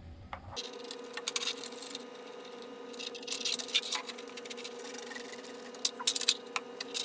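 Plastic handle connectors and fittings clicking and tapping as they are lined up on their bayonets and pushed into the device's sockets, a scatter of sharp clicks. A steady hum runs underneath from about half a second in.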